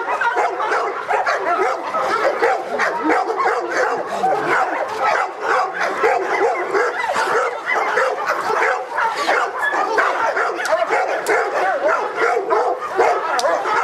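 Presa Canario barking rapidly and without pause at a decoy in a protection test.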